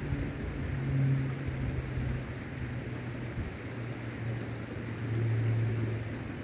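A low engine hum whose pitch drifts up and down and swells near the end, over a steady rush of wind on the microphone.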